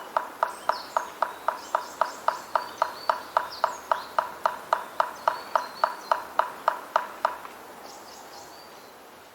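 A steady, even knocking, about four short hollow knocks a second, stops about seven seconds in. Faint high twitters of Oriental greenfinches come and go above it.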